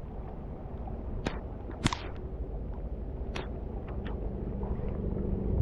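Heavy rain and wind rumbling on the camera's microphone, with a handful of sharp ticks, the loudest about two seconds in.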